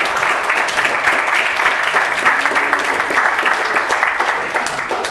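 An audience applauding, a dense steady clapping that tails off near the end.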